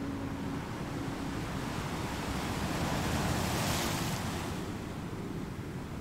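Shoreline wind and water ambience, a steady hiss that swells to its loudest about three to four seconds in. A faint low hum fades out in the first second and a half.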